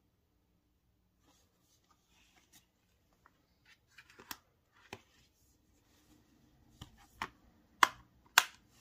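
Handling of a plastic Blu-ray disc case and its paper insert: faint paper rustling, then a run of sharp plastic clicks and taps, the two loudest near the end.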